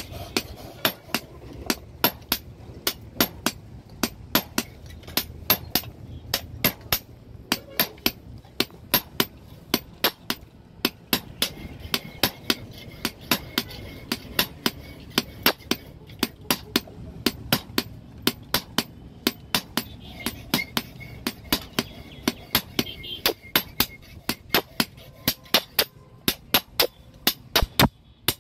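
A blacksmith's hand hammer striking a steel blade on an anvil: sharp, ringing metal-on-metal blows, a few a second, in a steady working rhythm, as the boti blade is forged.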